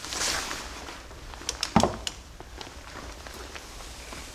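Tool-handling noise at a wheel hub: a brief rustle, then a few light metallic clinks and one dull knock about two seconds in, as a long torque wrench and socket are worked on the front axle nut.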